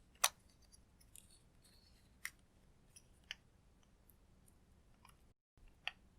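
Clear slime being handled, giving about four sharp clicks and pops with fainter ticks between, the first the loudest.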